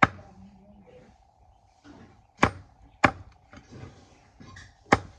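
Bamboo being chopped by hand: four sharp, separate chopping blows, one at the start, two close together about halfway through and one near the end.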